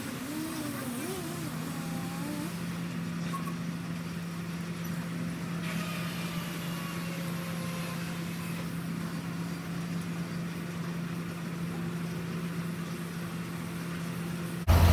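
An engine running steadily with an even hum. Just before the end it cuts suddenly to a much louder sound.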